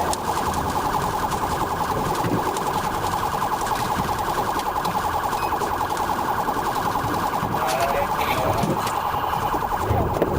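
Police car siren sounding in a fast, rapidly repeating warble, steady throughout.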